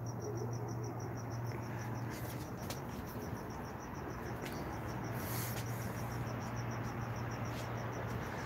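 A cricket chirping in a fast, even, high-pitched pulse, over a steady low hum.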